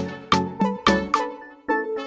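Background music: a light tune of short plucked notes, about three or four a second, with a brief break near the end.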